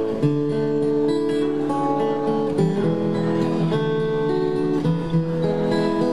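Acoustic guitar playing an instrumental tune: a slow melody of held notes over bass notes.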